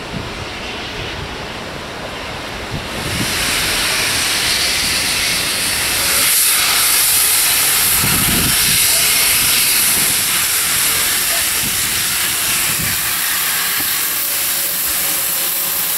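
Steam locomotive letting off steam: a loud, steady hiss that starts suddenly about three seconds in and holds without a break, over wind noise on the microphone.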